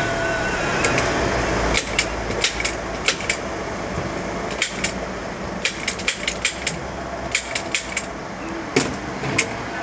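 Irregular sharp clicks and taps, some in quick clusters, over a steady low hum.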